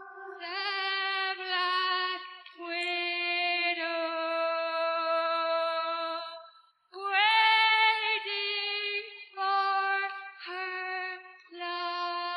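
Isolated live female lead vocal with no instruments, singing long held notes that glide between pitches. About halfway through it breaks off for a breath, then comes back louder on a high note.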